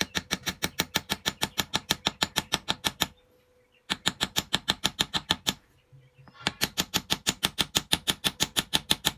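Light, rapid tapping of a wedge-shaped bamboo plug being driven into a bamboo chopstick whistle's mouthpiece hole, about eight taps a second, in three runs with brief pauses about three and six seconds in. The plug is tapped in without glue for a snug fit.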